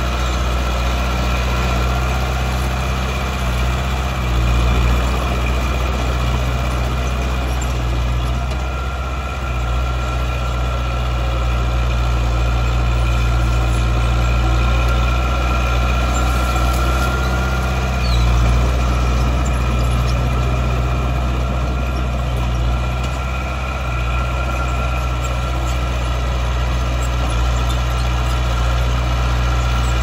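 Heavy diesel engine of earthmoving machinery running steadily, its note swelling slightly now and then.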